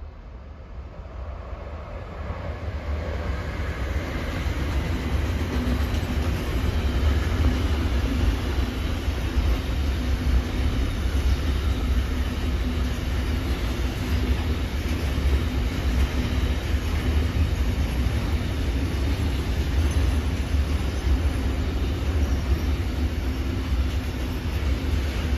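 Intermodal freight train passing close by behind an electric locomotive. The sound grows over the first few seconds as the train approaches, then settles into a steady rumble of container and tank wagons rolling past on the rails.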